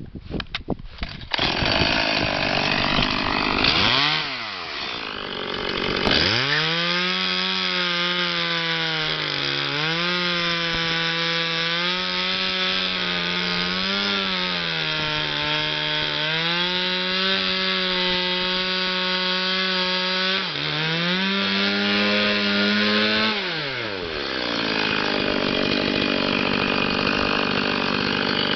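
Stihl MS 180 single-cylinder two-stroke chainsaw sputtering into life about a second in, then revved high, its pitch dipping and rising several times. Near the end the note turns rougher and less even.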